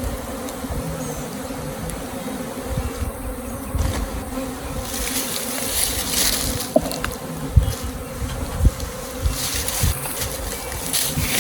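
A honey bee swarm buzzing in a dense, steady hum, with a few dull knocks about two-thirds of the way through.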